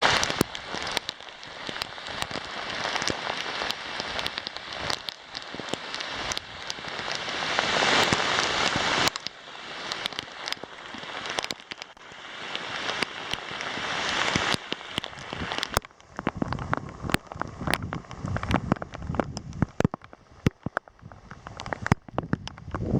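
Rain falling hard, with separate heavy drops hitting close by. The downpour swells and eases in waves, then thins to scattered drops a little over two-thirds of the way through.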